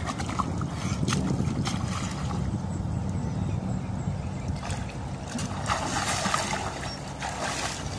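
River water splashing as swimmers dive and kick at the surface, with splashes about five and a half seconds in and again near the end, over a steady low rumble.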